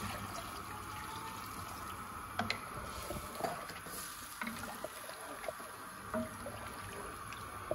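Water poured from a jug into a pot of mutton curry, then a wooden spatula stirring the thinned gravy, with a few soft knocks of the spatula against the pot.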